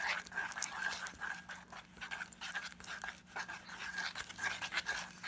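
Glue slime being stirred and worked after activator is added: a run of irregular wet, sticky squelches and crackles.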